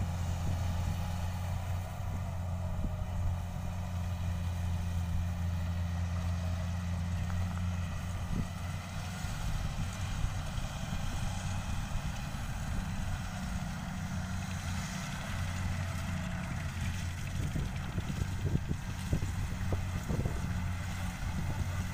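Diesel engine of rice-harvesting machinery running steadily with a low drone, with scattered short crackles in the second half.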